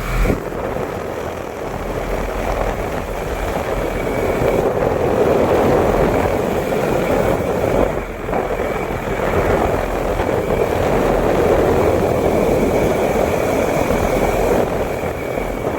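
Rheem air-conditioning condenser unit running, its fan sending a loud, steady rush of air that swells and eases every few seconds, with a faint steady high whine underneath.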